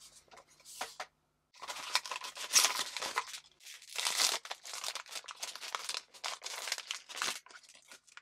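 Foil blind-box bag crinkling and tearing as it is pulled open by hand: a few light taps first, then a dense run of irregular crackles from about a second and a half in, dying away near the end.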